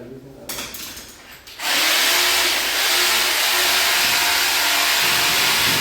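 Electric power drill running at a steady speed for about four seconds, starting about a second and a half in, a loud steady whir with a constant whine.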